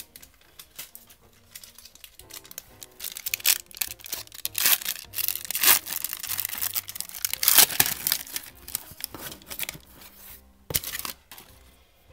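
A foil trading-card pack wrapper (1991 Upper Deck basketball) being torn open and crinkled by hand, in a run of crackly bursts starting a few seconds in, loudest through the middle, with a last burst near the end. Soft background music runs underneath.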